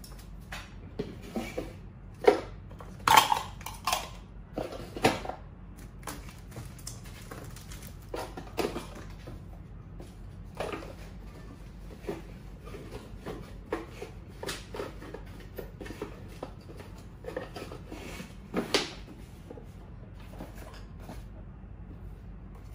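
Handling noise of a wooden gift box and the small items being packed into it: scattered knocks, clicks and light rustles, the loudest knocks coming about two to five seconds in and again near nineteen seconds.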